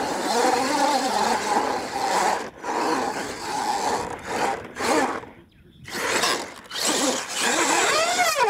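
R/C monster truck's electric motor and drivetrain whining as the throttle is worked, the pitch climbing and falling in spurts with short gaps between, over the hiss of tyres throwing dirt.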